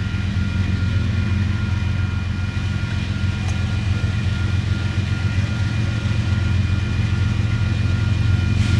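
Electronic grade-crossing warning bell ringing steadily over the low rumble of an approaching Union Pacific diesel freight, which grows slowly louder. The train is led by a C45ACCTE locomotive.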